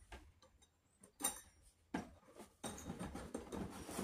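Small metal two-hole conduit clamps being slid apart by hand on a cardboard box: light clicks and clinks of metal on metal and cardboard, a few at first, then a quicker run of them over the last second and a half.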